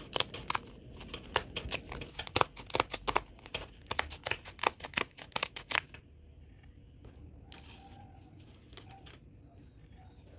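Scissors snipping through a woven placemat: a rapid run of sharp snips that stops about six seconds in, followed by faint handling sounds.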